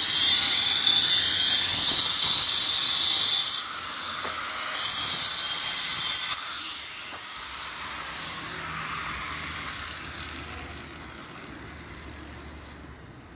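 Loud, high-pitched hiss of a high-pressure spray, on for about three and a half seconds, off for about a second, then on again for about a second and a half before cutting off suddenly. After that only a much fainter, steady background noise remains.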